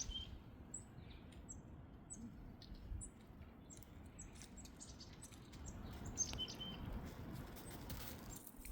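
Small birds chirping faintly: short, high chirps scattered irregularly, over a faint low background rumble.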